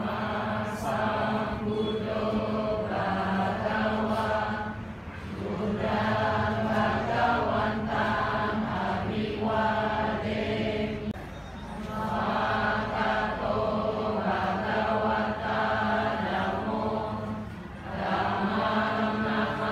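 Buddhist paritta chanting by a group of voices, a steady, near-monotone recitation in long phrases with brief pauses for breath about 5, 11 and 18 seconds in.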